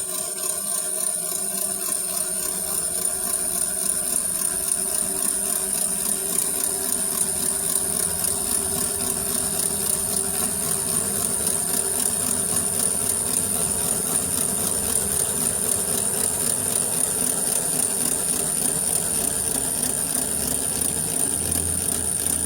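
Gafa automatic washing machine running, with a steady mechanical noise and a constant high-pitched tone, a noise the repairman puts down to a broken gearbox (transmission).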